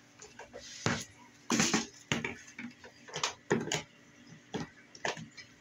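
Kitchen containers and utensils being handled and set down on a wooden countertop: a series of irregular short knocks and clatter, the loudest a cluster about a second and a half in.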